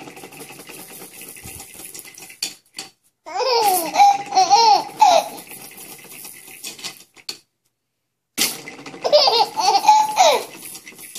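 A baby laughing in two bouts of giggles, one about three seconds in and one about eight seconds in, each about two seconds long, with quiet between.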